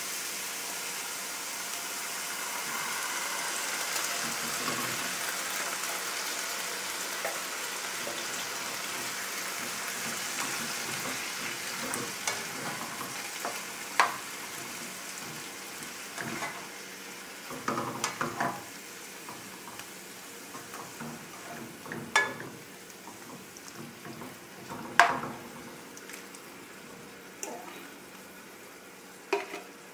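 Canned diced tomatoes sizzling as they are poured into a hot skillet of wilted spinach and mushrooms, the sizzle fading gradually as the pan cools. In the second half a spatula scrapes the can and knocks against the can and pan several times.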